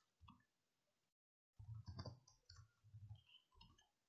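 Faint computer keyboard keystrokes, a scattered series of soft clicks as code is typed, broken by a moment of dead silence about a second in.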